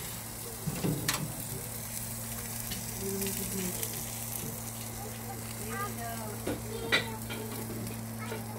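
Skewered chicken breast and vegetables sizzling on a barbecue grill: a steady hiss with a few sharp pops, the loudest about a second in and near the end.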